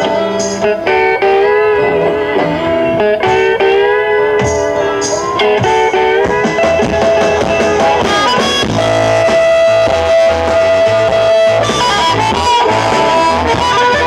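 Electric blues band playing live: guitars leading over bass, with a long held lead note around the middle of the passage.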